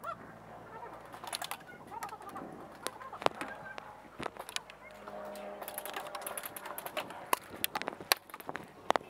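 Scattered sharp snaps of airsoft pistol shots and BB hits, irregular and at varying distances, with a few short pitched calls in the background.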